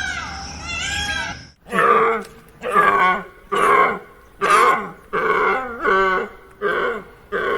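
An animal's repeated grunting calls, about one a second, starting after about a second and a half of high, arching chirps.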